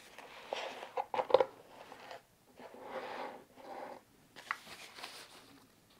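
Rustling and crinkling of thin foam packing wrap and cardboard as a wrapped item is lifted out of its box, with a few sharp crackles about a second in.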